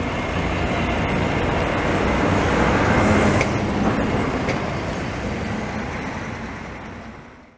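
Translohr rubber-tyred tram running past and pulling away: a steady, noisy rumble that peaks midway and then fades out near the end, with a few light clicks in the middle.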